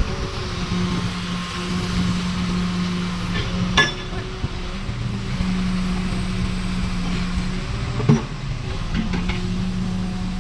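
Excavator's diesel engine running steadily, with two sharp knocks about four seconds apart.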